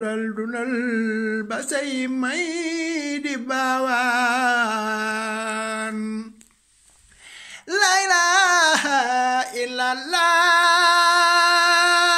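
A man singing unaccompanied in long, drawn-out notes with a wavering vibrato. He breaks off briefly about six seconds in, then comes back and holds one long note near the end.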